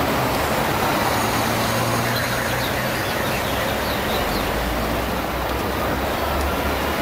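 Steady busy-street traffic noise from double-decker buses and trams running along the road, with a low engine hum underneath. A few faint, short high squeaks come about two to four seconds in.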